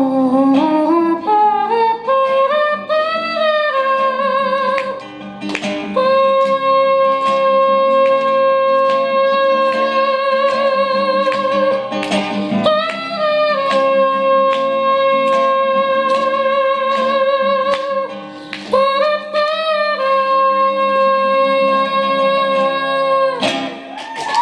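A woman singing with an acoustic guitar: she glides up into long, high held notes with vibrato, three in a row, and strums chords between them.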